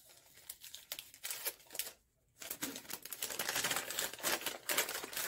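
Packaging being handled and unwrapped by hand: a few scattered clicks and taps, then from about halfway a dense run of crinkling and rustling as the wrapping around a small shower steamer is opened.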